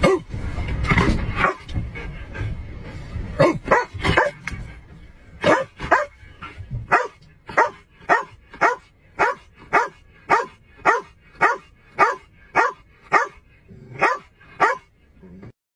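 Shepherd-type police K-9 dog barking over and over at a steady pace of about two barks a second, from a few seconds in until just before the end.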